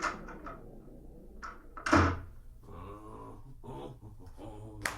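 A door being opened and closed, with knocks, a heavy thud about two seconds in and a sharp click near the end.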